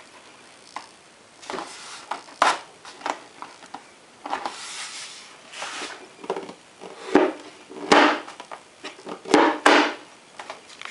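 A magnet-latched cover being handled and pressed shut by hand: several sharp clicks and knocks as it snaps against its magnets, with rubbing and scraping of the shell in between.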